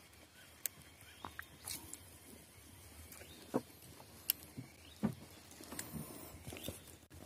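Scattered faint clicks and knocks at irregular intervals over a quiet background, with the sharpest ones about three and a half and four seconds in.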